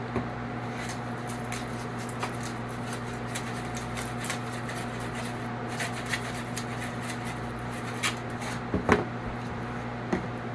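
Seasoning shaken from a shaker bottle over raw steaks in a foil pan: many faint scattered ticks, then a few louder knocks near the end as the bottle is set back down on the counter among other bottles. A steady low hum runs underneath.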